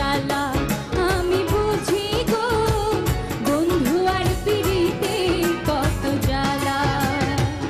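A woman singing a Bengali folk song, the melody wavering and ornamented, over a steady drum beat and instrumental backing.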